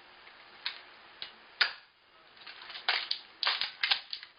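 Hard plastic clicks and snaps of an airsoft pump-action shotgun being cocked and fired. A few separate clicks, a sharp snap about one and a half seconds in, then a quick run of clacks near the end.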